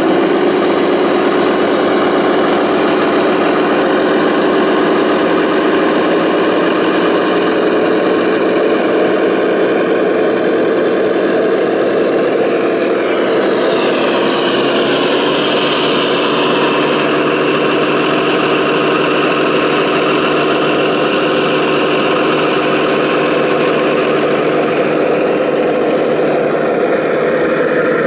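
Engine sound of radio-controlled trucks running steadily, its pitch rising slightly about halfway through.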